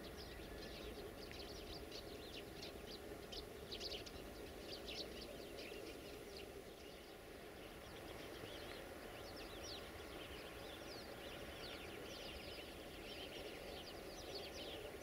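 Many small birds chirping and twittering in quick, overlapping short notes, over a steady low background rumble.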